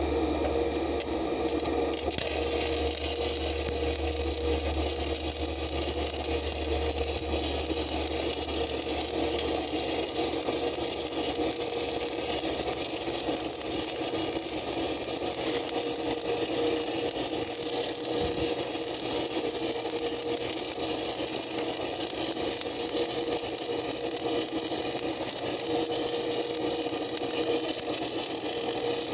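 Stick-welding arc on a steel backhoe arm, a steady crackling hiss that strikes up about two seconds in and holds, with a steady hum underneath.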